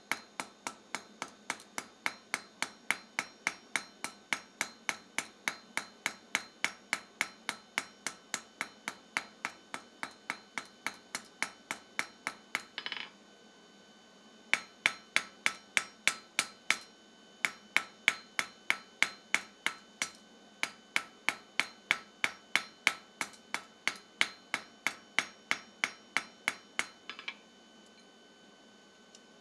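Blacksmith's hand hammer forging steel on an anvil in a steady rhythm of about two and a half blows a second, the anvil ringing with each blow. The hammering stops about thirteen seconds in, starts again a second and a half later, and stops again near the end.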